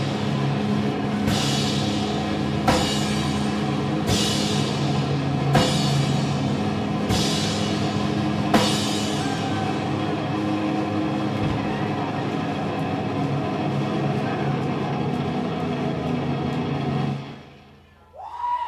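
Live rock band ending a song: six cymbal crashes about a second and a half apart over a held chord, which rings on and then stops abruptly about a second before the end.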